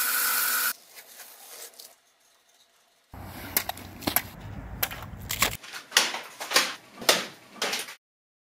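Bench belt sander grinding a steel blade, cut off abruptly under a second in. After a short silence, low wind rumble on the microphone with a run of sharp knocks and crunches.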